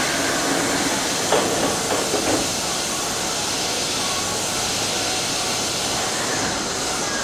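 Keisei 3700-series electric train standing at a platform with a steady hiss of air, its sliding doors closing with a knock about a second in and a few more knocks around two seconds.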